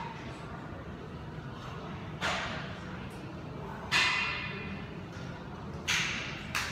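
Four sharp metal clanks with a brief ring, from a steel squat rack and its pull-up bar as a man hangs and swings on it; the loudest comes about four seconds in. A steady low hum runs beneath.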